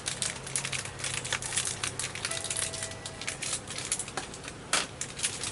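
Irregular crinkling and clicking of things being handled by hand, like packaging and fittings being turned over.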